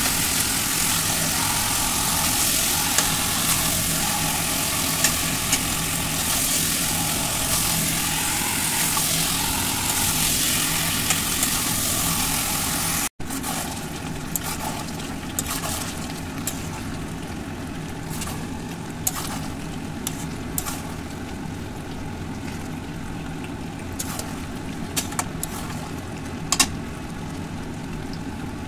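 Chicken curry sizzling in an iron kadai, a steady noisy hiss with a low hum under it. A metal spatula scrapes and clinks against the pan. The hiss drops in level after a sudden cut about 13 seconds in.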